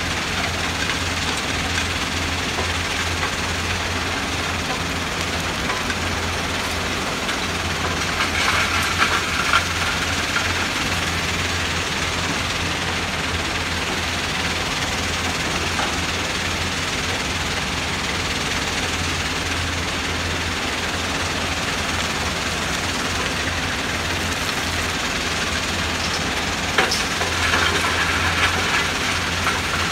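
Diesel engines of crawler excavators running steadily under working load, a constant low drone with mechanical noise over it. Brief louder clattering comes about eight seconds in and again near the end.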